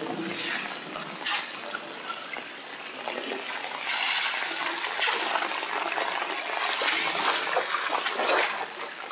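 Heavy downpour with storm runoff streaming across a flooded gravel driveway and yard: a steady, dense wash of water noise that swells louder about four seconds in and again around seven seconds.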